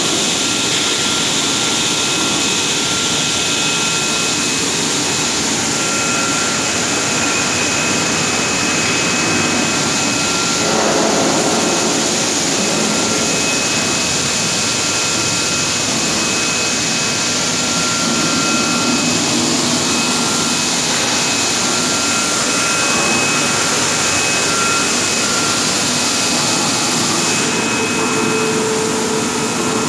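Industrial heavy-component washing machine running: a loud, steady hiss-like noise with a faint high whine, and a lower hum coming in near the end.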